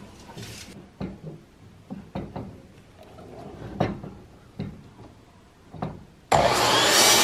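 A string of wooden knocks and clunks as boards are handled and set at a miter saw, then about six seconds in the electric miter saw switches on and its motor runs loudly at full speed.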